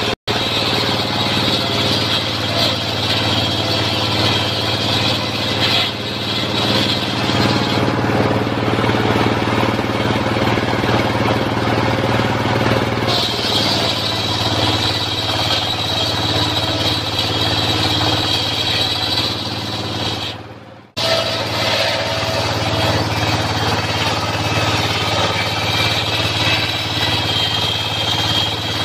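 Engine-driven circular saw of a mobile sawmill ripping acacia timber into beams, with the engine running steadily underneath. The high whine of the blade in the wood eases off about six seconds in and comes back about thirteen seconds in. The sound breaks off briefly about two-thirds of the way through.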